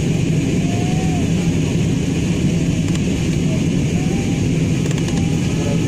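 Airliner cabin noise in flight: a steady, even rumble of engines and airflow, heaviest in the low range.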